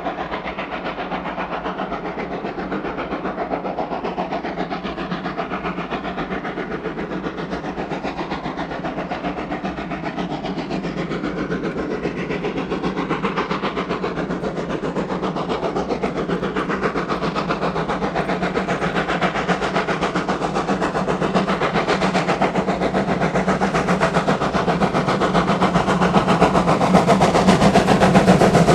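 Steam locomotive running with a train, a continuous, finely pulsing sound that grows steadily louder as it approaches.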